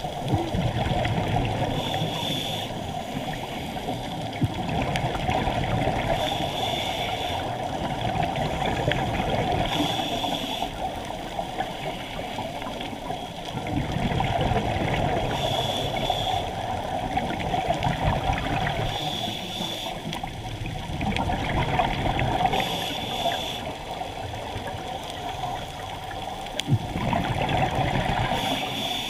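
Scuba breathing heard underwater through a camera housing: a regulator's short hiss on each inhale, about every three to four seconds, and the bubbling gurgle of exhaled air between breaths.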